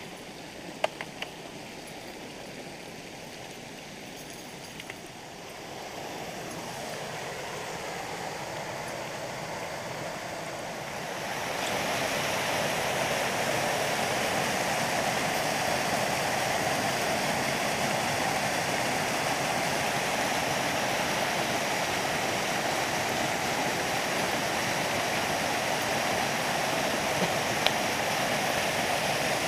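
River water rushing over a small two-step rock waterfall, a steady rush that grows louder in two steps, about six and about twelve seconds in. A few brief sharp clicks sound about a second in and again near the end.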